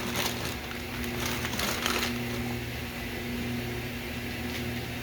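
A steady low hum with a few faint clicks and scrapes of kitchen work.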